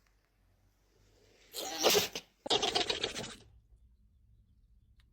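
A dog sneezing once, a short sharp burst about two seconds in, followed at once by a second, rougher noisy burst lasting about a second.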